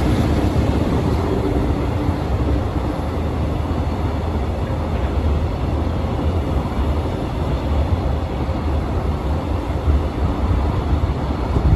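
Steady outdoor background noise dominated by a heavy low rumble, with a faint hum that fades out in the first few seconds.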